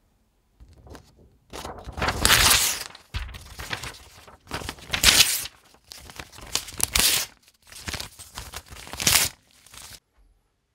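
A sheet of paper being torn up, rip after rip, with crinkling between; the four loudest rips come roughly two seconds apart.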